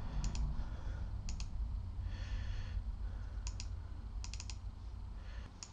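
Scattered clicks at a computer: a few single clicks and a quick run of three about four seconds in, over a low steady hum.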